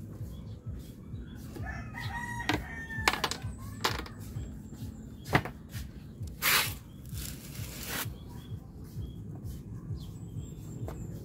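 A rooster crows about two seconds in, over a steady low rumble. Several sharp clicks and knocks follow, then a loud burst of noise about six and a half seconds in.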